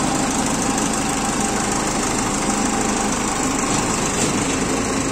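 Iseki TA337 tractor's four-cylinder diesel engine running steadily at low revs, with no change in pitch.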